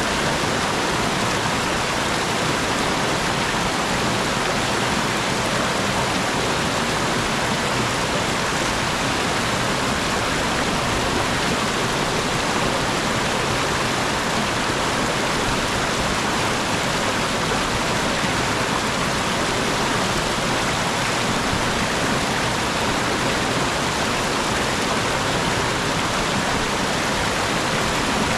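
Clear mountain stream tumbling down over rocks: a steady, even rush of water.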